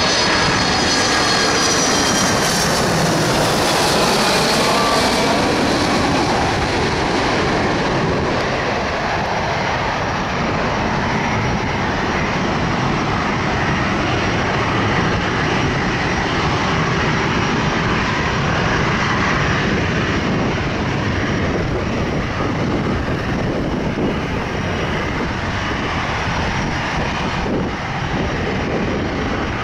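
Boeing 767-300's twin jet engines passing close overhead on landing approach: a high whine falling in pitch over the first few seconds, then a steady jet roar that carries on through touchdown and rollout.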